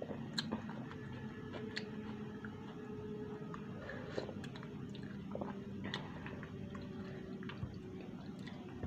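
Close-up eating sounds: chewing and slurping noodle soup, with short light clicks of a spoon and wooden chopsticks against the bowl, over a steady low hum.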